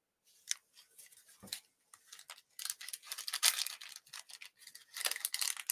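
Paper and card stock rustling and scraping as a handmade greeting card is opened and handled, in short scratchy strokes that grow busier about halfway through.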